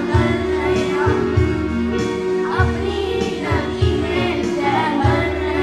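Group of children singing a Hindi song in chorus into microphones, over instrumental backing music with a steady beat.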